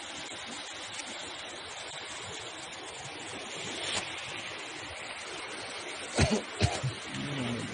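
Steady rushing noise, with a cluster of sharp thumps about six seconds in and a brief voice near the end.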